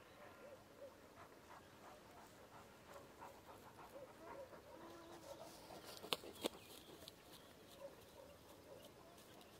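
Faint panting of an overheated Alabai (Central Asian Shepherd dog), with two sharp clicks about six seconds in.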